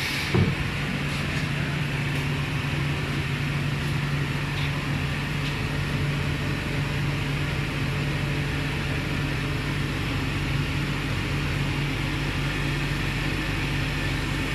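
High-frequency PVC welding machine humming steadily, a constant low tone over an even machine noise, with a single knock about half a second in.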